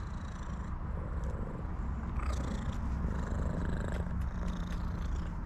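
A tuxedo cat purring steadily while being stroked.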